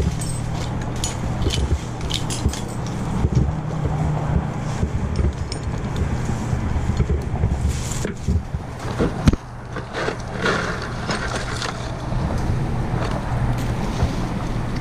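A motor running steadily with a low hum, under scattered sharp clicks and knocks; one knock stands out a little after the halfway point.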